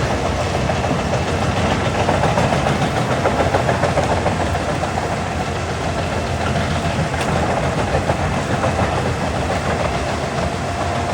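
Large wood chipper, rated at about 800 horsepower, running loud and steady: its engine and chipping drum at work.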